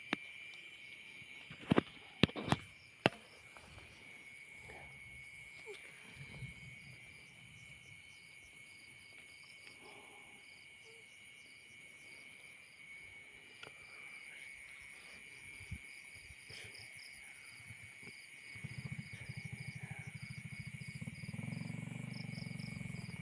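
A steady night chorus of crickets and other insects chirping, with a rapid pulsed chirp above a continuous high trill. About two seconds in come four sharp clicks within a second or so, and near the end a low pulsing buzz sets in.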